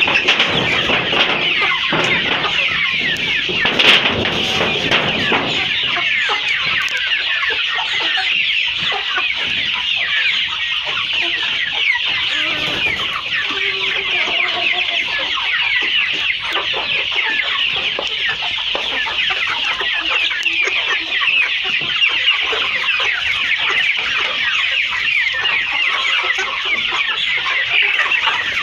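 A large flock of kienyeji chickens calling together: a dense, continuous chorus of many short, high, overlapping calls.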